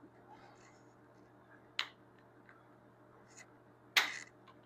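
Tools being handled: a sharp click almost two seconds in and a louder metallic click near the end, with a few fainter ticks and light rustling.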